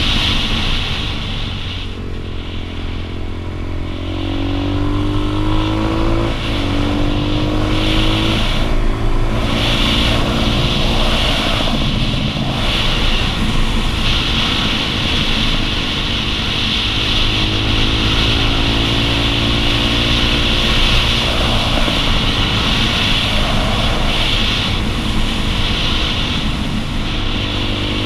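Dual-sport motorcycle engine running steadily under way, recorded close to the bike. Its note climbs several times in the first half and drops back each time, the way it does through gear changes. A steady rush of wind noise lies under it.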